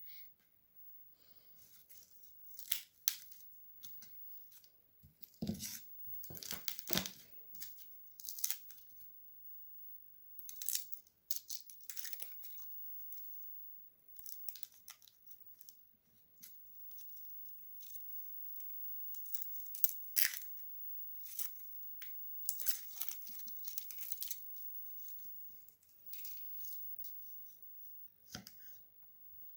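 Irregular crinkling and tearing handling noises, coming in short clusters, with a light knock about five seconds in and another near the end.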